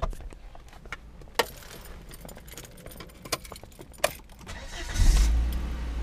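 Keys clicking and jangling in the ignition, then about five seconds in the Volvo V70's engine starts with a sudden loud burst and settles into a steady low idle.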